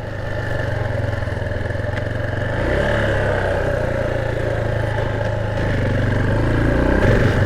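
Motorcycle engine running as the bike is ridden, its note shifting a couple of times and getting a little louder near the end.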